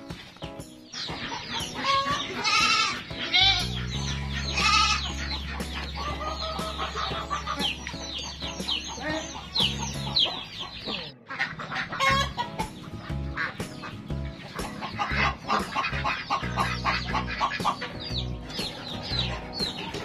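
Background music with a steady bass line, and chickens clucking over it.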